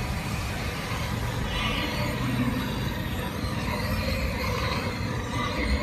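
Automatic meat floss frying machine running: its motor-driven stirrer turning through the meat floss in the pan, a steady mechanical noise with a low rumble.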